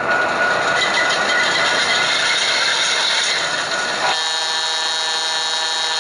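Sound system of an HO-scale model diesel locomotive: a steady, noisy running sound, then about four seconds in a locomotive horn chord sounds and is held for about two seconds.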